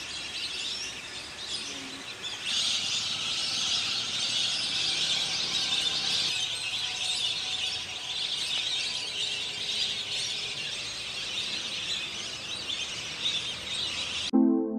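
A large flock of lesser whistling ducks calling together: a dense, steady chorus of many thin, high whistles, louder from about two and a half seconds in. It is cut off just before the end by a piano note.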